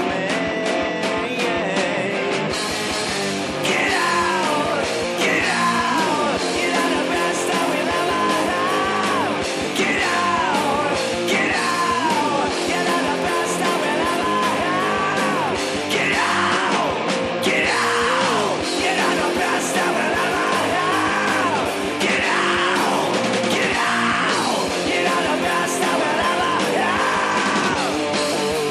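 Loud stoner rock band recording: guitars and drums playing steadily, with a high sliding line that falls in pitch about every two seconds.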